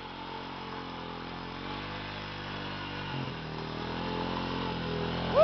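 ATV engine running under way, its note steady, then dipping briefly about three seconds in and picking up again as it slowly grows louder. A brief shout near the end.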